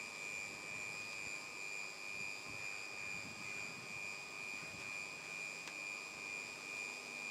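A steady high-pitched machine whine over a faint hiss.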